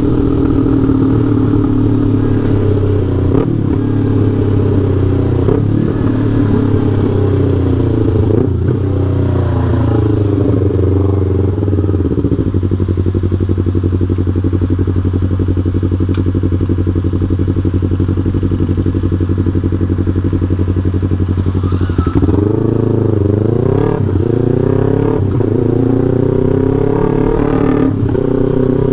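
Yamaha R3's parallel-twin engine through an aftermarket Full Pro exhaust, remapped, revving up and down repeatedly. It holds a steady note for about ten seconds in the middle, then rises and falls again near the end.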